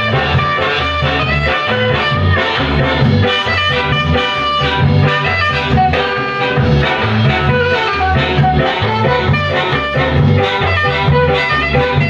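A 1965 ska record playing from a green vinyl 7-inch single on a turntable: ska music with a steady beat.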